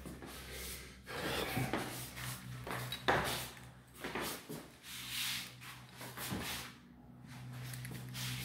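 Soft, irregular shuffling and rustling from someone walking through an empty room, over a steady low hum.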